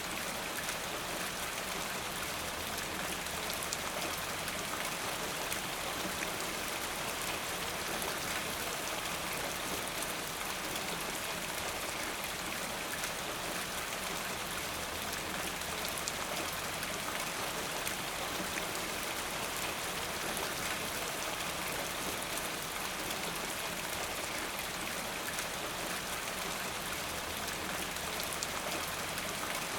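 Steady rain: a dense, even hiss with the fine ticking of countless individual drops, holding at one level throughout.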